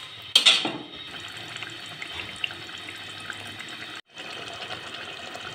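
Masala gravy with mutton brains cooking in a pot: a steady fine crackling and bubbling hiss full of small ticks, with a brief loud noise about half a second in. The sound drops out for a moment a little after four seconds.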